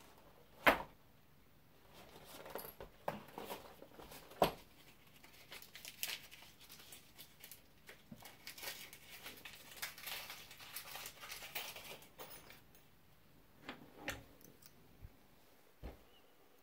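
Hands handling small tools and parts: scattered sharp clicks, two of them louder, about a second in and at four and a half seconds, and a few seconds of light rustling and crinkling in the middle.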